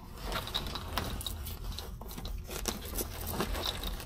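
Small crunches, clicks and scrapes of things being handled, over a low steady hum.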